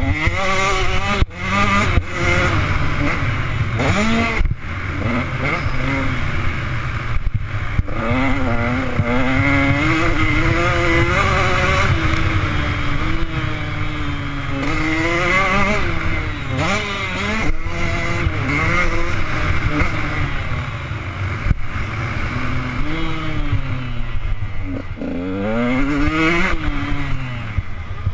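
Motocross bike engine revving hard and easing off again and again as it is ridden around a dirt track, heard close up from on the bike. Its pitch climbs and drops with each burst of throttle, with a few sharp knocks along the way.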